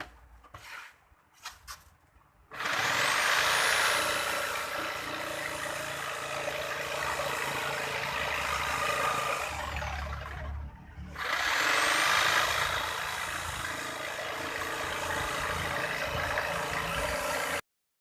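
Electric power tool run twice. Each time its motor whines up to speed, runs with a harsh cutting noise for six or seven seconds, then winds down; the second run cuts off abruptly.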